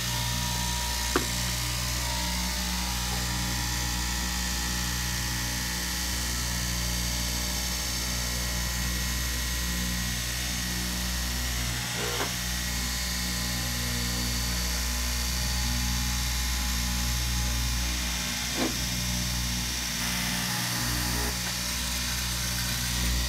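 Electric straight-knife cloth cutting machine running steadily, its upright reciprocating blade cutting through a stack of fabric layers. A few short clicks come through the motor hum.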